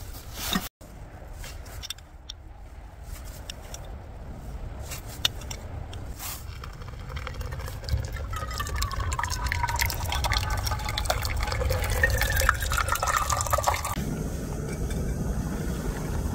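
Hot water poured in a thin stream into a paper drip-bag coffee filter hung in a metal tumbler, splashing and trickling with a ringing pitch that slides as the cup fills. It cuts off suddenly near the end, giving way to a low steady rush.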